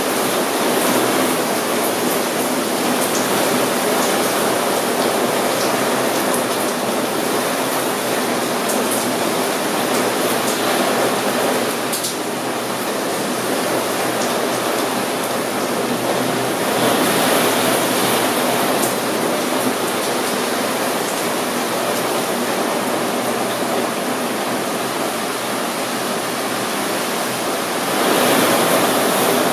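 Steady rain falling against a window, an even rushing hiss with a few sharp ticks of drops. It swells louder twice, briefly in the middle and again near the end.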